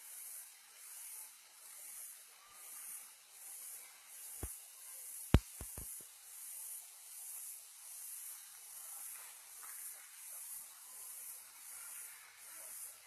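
High, even insect drone pulsing about twice a second. Near the middle, a sharp knock, the loudest sound here, with a smaller knock just before it and two just after, like the phone being bumped in the hand.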